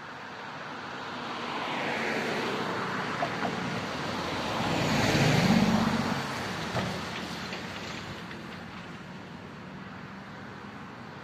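A box truck drives past close by and away over the level crossing. Its engine and tyre noise swell to a peak about five seconds in and then fade slowly. A few short knocks are heard along the way.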